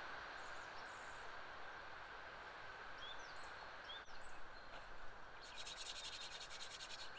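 Faint woodland ambience: a steady low hiss with a few short bird chirps about three seconds in. Over the last second and a half comes a fast, even rasping.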